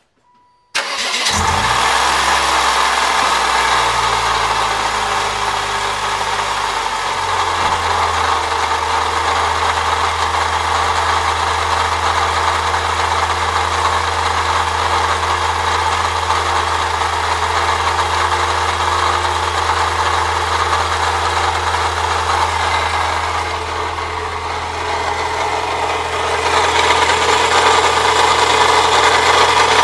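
1998 Saturn SL2's 1.9-litre twin-cam four-cylinder engine starting about a second in, then settling to a steady idle with a continuous scraping, grinding noise from the belt area. With the A/C compressor bypassed by a shorter belt the grinding remains, which the owner takes to point at the water pump. The sound gets louder near the end.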